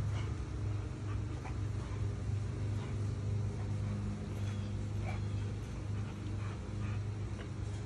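Boxer dog whimpering in short bursts while jumping at a tetherball, over a steady low hum.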